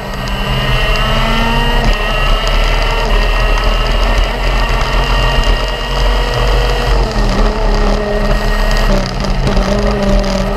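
Racing go-kart engine at full throttle, its pitch rising steadily for about seven seconds as the kart speeds down the straight, then dropping sharply as the driver lifts off, picking up briefly and dropping again near the end.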